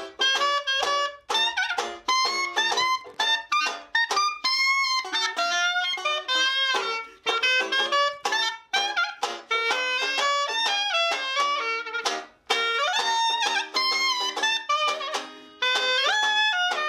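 Clarinet playing a lively New Orleans jazz melody, sometimes sliding between notes, over a banjo strumming chords in a steady rhythm.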